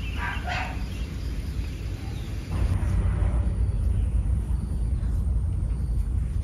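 Steady low outdoor rumble, with a short run of high chirps about half a second in.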